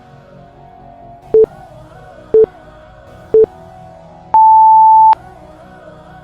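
Workout interval timer counting down: three short beeps a second apart, then one longer, higher beep marking the start of the interval, over background music.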